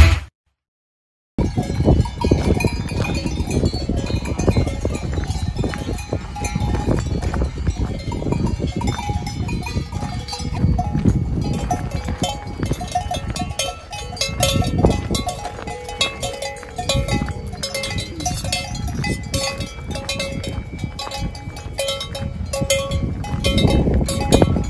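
Bells on grazing Alpine livestock ringing irregularly, several bells at different pitches, starting about a second in.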